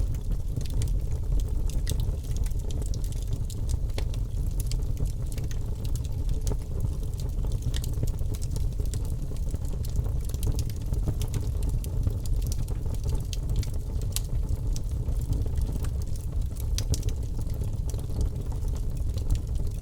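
Birch logs burning in a fireplace: frequent irregular sharp crackles and pops over a steady low rumble.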